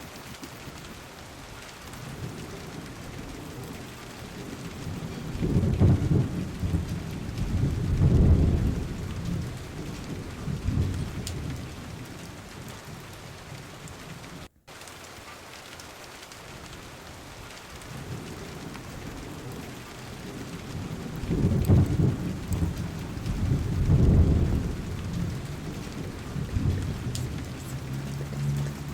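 Steady rain with rolls of low thunder, two swells a few seconds in and the same two again about sixteen seconds later; the sound cuts out for an instant midway, where the recording loops.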